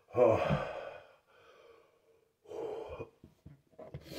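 A man retching and gagging without throwing up from the burn of a ghost pepper. A loud, strained heave starts about a tenth of a second in and lasts about a second, a weaker one comes about two and a half seconds in, and a short noisy breath near the end.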